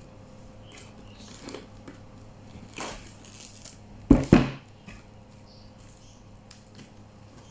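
Plastic cling wrap rustling and crinkling as it is stretched over a metal baking tray of dough, with two heavy thumps in quick succession about four seconds in.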